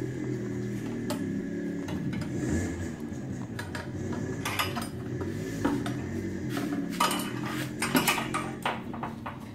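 Black metal adjustment clamp of a tyre hugger clinking and knocking as it is handled and held against a motorcycle's swingarm: a scatter of light metallic clicks, busiest in the second half, over a steady low hum.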